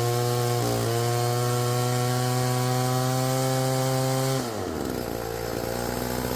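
Chainsaw winch's small two-stroke engine running at high speed with a brief dip about a second in, then dropping back to a lower, steady speed about four and a half seconds in.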